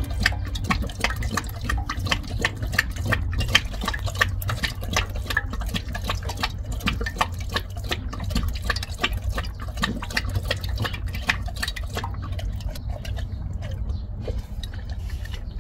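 Labrador retriever lapping water from a stainless steel bowl: a fast, continuous run of wet splashing laps that thins out near the end.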